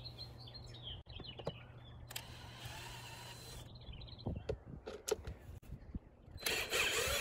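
Cordless drill running in two short bursts as it backs out screws from the top of a Jeep roll bar. The second burst, near the end, is the louder.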